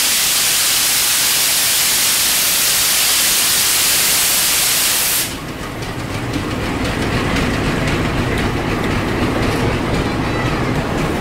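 A loud, steady hiss of air for about five seconds cuts off suddenly. Then a GE-built CC 201 diesel-electric locomotive passes at low speed, its engine running with a low rumble alongside the train.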